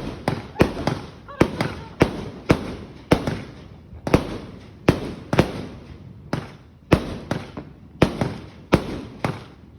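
An Eclipse 260-shot firework cake firing: a steady string of sharp bangs, about two a second, each followed by a short tail.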